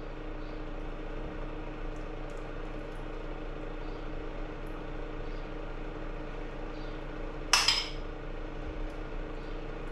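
A spoon dishing lime dressing from a small bowl onto a plate: faint scrapes and taps, then one louder clink of spoon on bowl about seven and a half seconds in, over a steady low hum.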